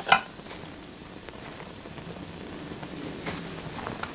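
Burning Lego plastic: flames hissing steadily with scattered crackles and pops, more of them near the end. A short, sharp burst of noise comes right at the start.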